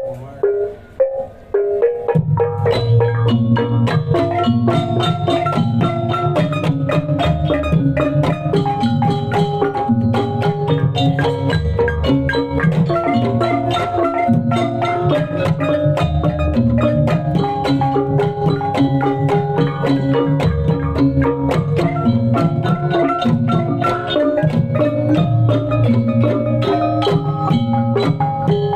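Gamelan music accompanying kuda lumping: struck mallet instruments play a fast, repeating melody over drums. After a few scattered strikes, the full ensemble comes in about two seconds in.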